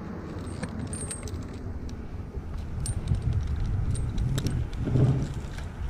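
Metal climbing hardware on a climber's harness jingling and clinking as he shifts his position, over a steady low rumble.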